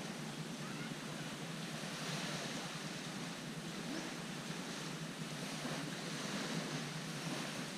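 Small waves of a calm sea washing onto a sandy beach: a steady, even wash of surf.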